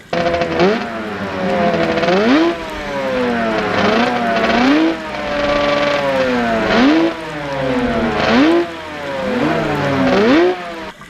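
Engine-revving sound effect: a motor's pitch climbs and drops over and over, about six times, like a car accelerating through gear changes.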